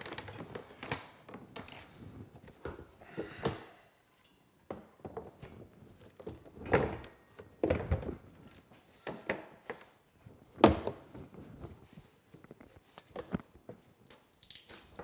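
Irregular knocks and thuds of UTV parts being handled and fitted as the back deck goes on, with one sharp knock about two-thirds of the way through.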